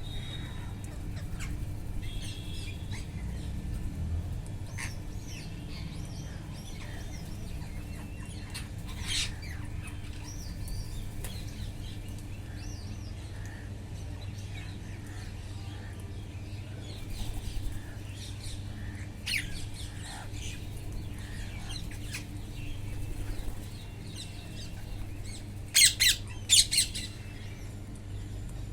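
Wild parrots squawking: scattered short, harsh calls with softer chatter between, and a cluster of four loud squawks near the end. A steady low hum runs underneath.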